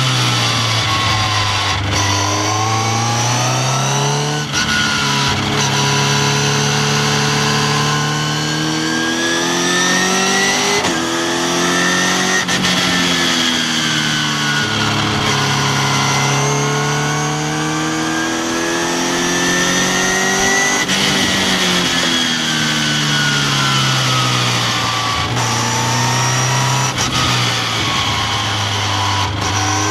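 Westfield sports car's engine heard onboard at track speed, its note climbing under acceleration and falling away under braking several times, with brief dips at gear changes.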